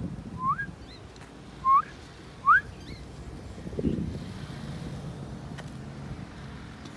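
Three short, clear rising whistles about a second apart, then a low rumble about four seconds in.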